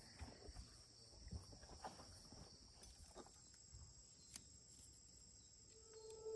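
Faint, steady chirring of insects, with a few soft knocks and one sharp click a little past halfway.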